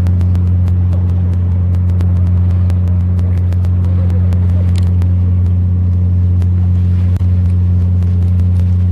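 Fishing boat's engine running steadily: a loud, constant low hum, with faint scattered ticks over it.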